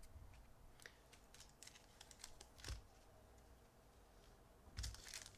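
Baseball trading cards handled on a tabletop: faint light clicks and flicks as cards are picked up and set down, a scattered run about a second in and a denser cluster near the end.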